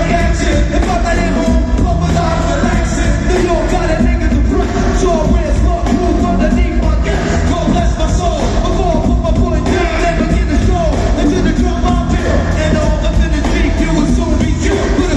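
Live hip-hop over an arena PA: a heavy, booming bass beat with rapped vocals on top, muddy and boomy, the bad sound quality complained of at the show.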